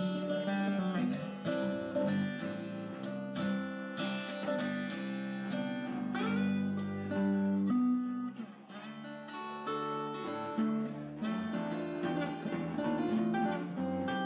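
An acoustic guitar and an acoustic bass guitar playing an instrumental passage of picked notes and strummed chords, with a brief softer moment about halfway through.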